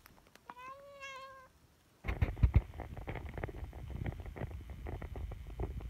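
A single drawn-out, meow-like animal call lasting about a second, then a run of crackling, rustling and thumping noise that is loudest just after two seconds in.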